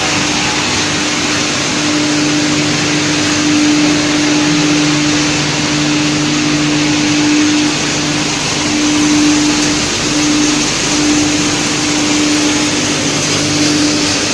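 Wood chipper running: a loud, even machine noise with a steady hum that drops out briefly a few times.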